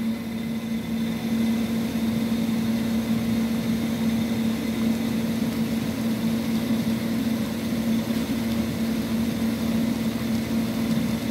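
Steady machine hum: one constant low tone over an even hiss, unchanging throughout.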